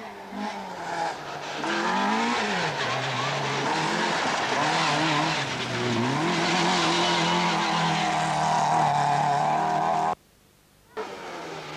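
A rally car's engine revving hard on a gravel stage, its pitch climbing and dropping through gear changes, over a steady hiss of tyres on loose gravel. Near the end the sound cuts out suddenly for about a second.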